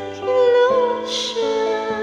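A woman singing a slow song into a microphone over a backing track of sustained instrumental chords, her voice gliding between held notes.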